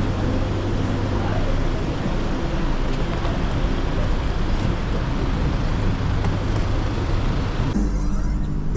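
Traffic along an airport terminal's pick-up lane: cars and vans passing slowly, with a steady low hum under an even wash of road noise. Near the end it cuts to background music.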